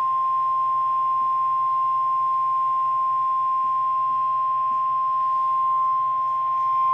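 NOAA Weather Radio warning alarm tone: a single steady 1050 Hz tone over faint radio hiss, the alert signal that comes before a broadcast weather warning.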